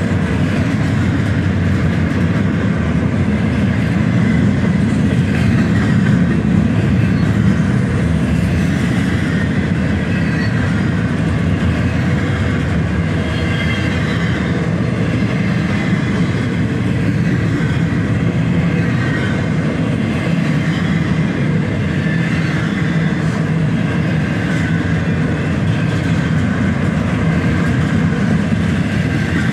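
Union Pacific double-stack intermodal freight train passing slowly: a steady, continuous rumble and rattle of loaded container well cars rolling over the rails.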